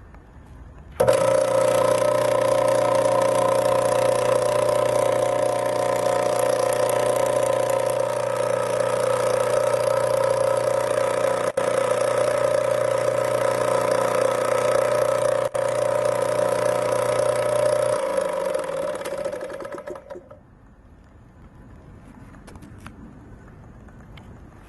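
Kyowa air-conditioner washing pump's motor switched on about a second in, running with a steady hum and whine, then switched off near the end and spinning down.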